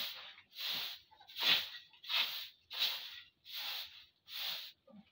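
A broom sweeping in short, even strokes, about three every two seconds.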